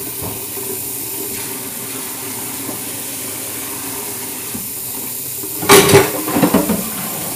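Water running steadily from a kitchen sink sprayer as bowls are rinsed out. About six seconds in, one loud clatter of a bowl against the sink, followed by a few lighter knocks.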